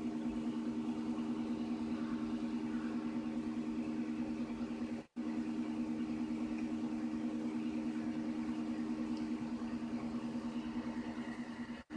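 XYZprinting da Vinci 3D printer running, its motors giving a steady two-note hum with a fast flutter. The hum cuts out abruptly for a moment about five seconds in and again near the end.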